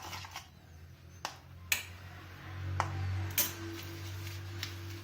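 Several sharp clinks and taps of an idli mould tray being handled and greased with oil, over a low steady hum.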